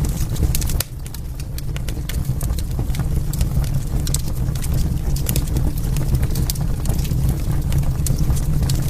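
Wood fire crackling in a fireplace: many sharp pops and snaps over a steady low rumble of burning.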